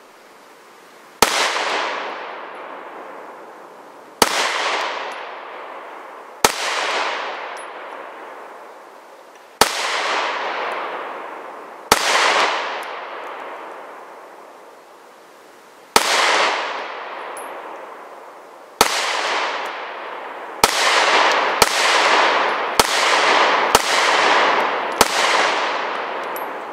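Springfield Armory XD9 subcompact 9mm pistol fired twelve times. The first shots come slowly, one every two to four seconds, and the last handful come quicker, about one a second. Each shot is followed by a long echo that fades over two or three seconds.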